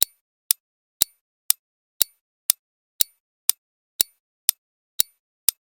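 Countdown timer sound effect ticking steadily, two sharp ticks a second, while the time to answer runs.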